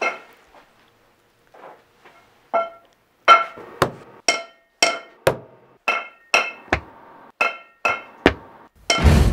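Metal pipe struck over and over, sharp clangs that ring briefly, about two a second in a steady rhythm. Loud music comes in near the end.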